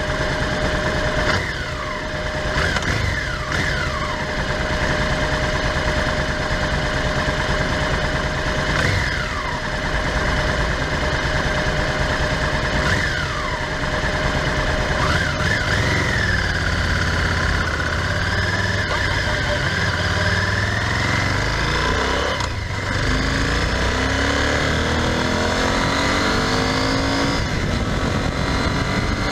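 Honda Varadero XL1000V's V-twin engine running at low revs, then from about two-thirds through the revs climb again and again as the motorcycle pulls away and accelerates through the gears.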